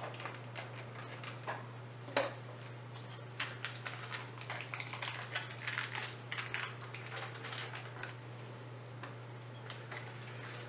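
Irregular light clicks, taps and scrapes as cream cheese is handled and added into a food processor bowl, over a steady low hum.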